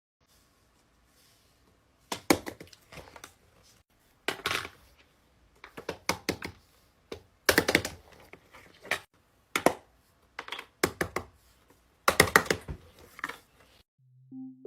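Small hard objects, fidget toys, being handled: bursts of sharp clicks and clatter every second or two.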